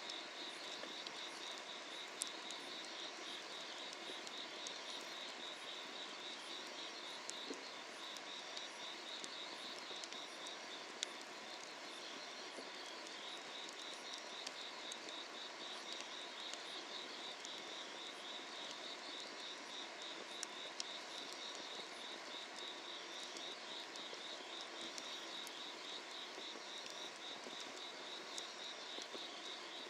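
Grass insects chirping steadily in rapid pulsed trains, a summer-night chorus, over the low hiss of a wood fire burning under an iron cauldron. Burning firewood gives a few sharp pops.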